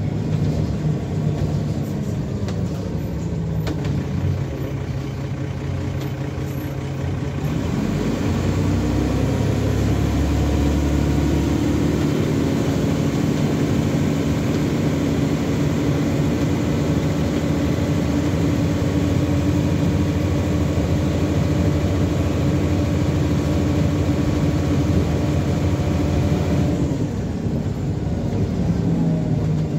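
Dennis Trident double-decker bus's diesel engine heard from the upper deck. It idles, then its revs rise about eight seconds in as the bus pulls away. It runs steadily under way, and drops back to a lower note near the end.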